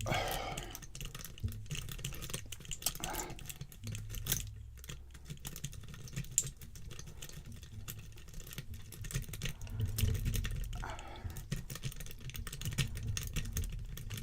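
Lock pick raking the pins inside a Trimax stainless steel disc padlock: rapid, irregular small metallic clicks and scrapes as the rake is worked in and out under tension.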